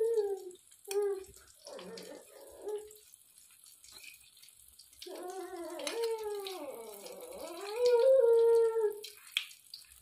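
Bread frying in oil in a pan with a steady sizzle. Over it a young child's high voice makes a few short calls in the first few seconds, then a long drawn-out sound about halfway through whose pitch wavers up and down.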